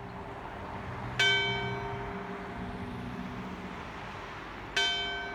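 A single church bell tolled slowly as a funeral knell: two strokes about three and a half seconds apart, one about a second in and one near the end, each ringing on and slowly fading.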